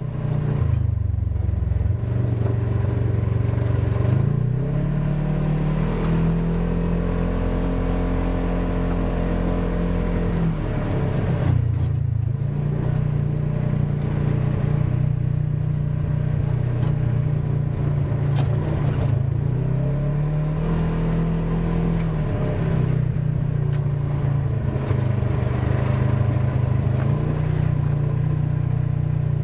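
Polaris RZR 1000 side-by-side's engine running under way, recorded by a camera mounted on the machine. The engine note climbs about two seconds in, holds higher, and drops back near the middle, then rises and falls again about two-thirds of the way through as the throttle is worked.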